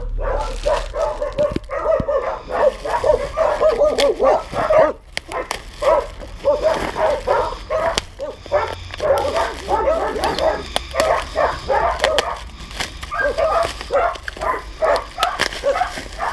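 A dog giving short yapping and whining calls over and over, with the crinkle of bubble-wrap plastic being handled and pulled open.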